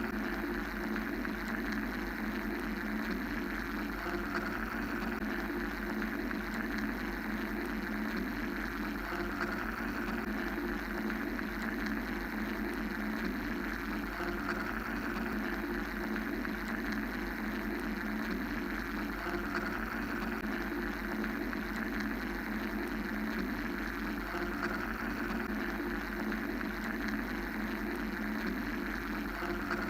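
Steady mechanical white-noise drone: a constant low hum with a hiss over it that slowly swells and eases every several seconds, otherwise unchanging.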